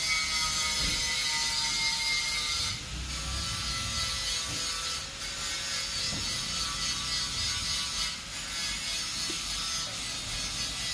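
Dense mechanical clicking and rattling, like a ratchet or hand tool at work, with a faint steady whine. It dips briefly three times.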